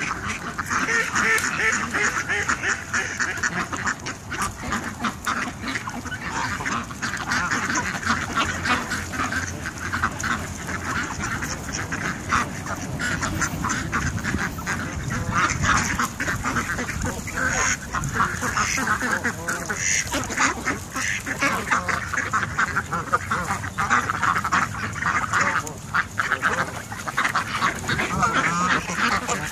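A flock of ducks and geese quacking and honking over one another without a break, a busy clamour of birds crowding in to be fed bread.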